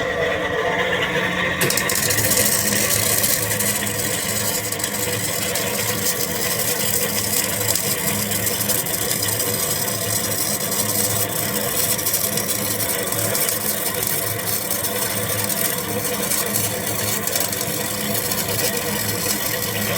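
MIG welding arc crackling and sizzling steadily, the high crackle starting about a second and a half in, over the welder's steady low electrical hum.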